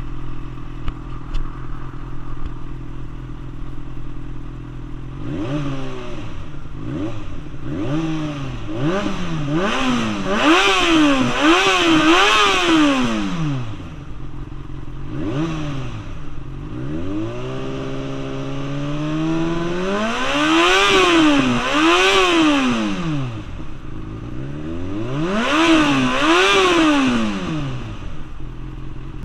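2008 Yamaha FZ6 S2's inline-four engine running through a SHARON aftermarket exhaust: it idles steadily for about five seconds, then is revved in a string of quick blips. After a slower climb it is revved sharply twice, then again near the end, each time dropping back to idle.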